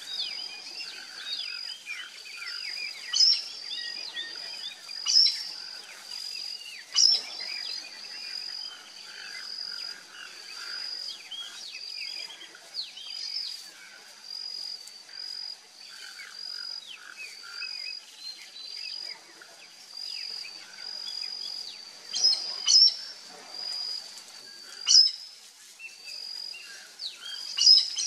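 Several birds calling and chirping at once: a high, steady note repeated over and over with short gaps, many quick chirps and falling whistles, and about seven loud, sharp calls spread through.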